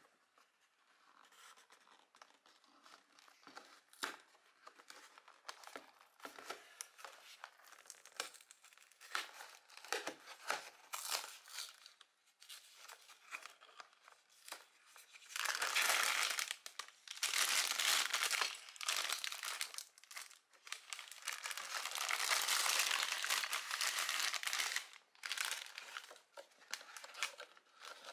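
A cardboard Lego set box being opened by hand: scattered light clicks and scrapes of card at first. About halfway through comes a long stretch of loud crinkling and tearing as the flap is torn open and the plastic parts bags inside are handled.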